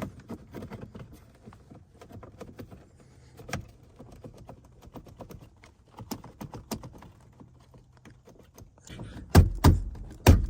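Steering-column parts being handled and pushed back into place: scattered light plastic clicks and rattles, then a run of louder knocks near the end.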